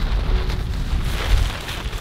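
Wind buffeting the microphone: a low rumble that swells and fades in gusts, strongest in the first second and a half, then easing.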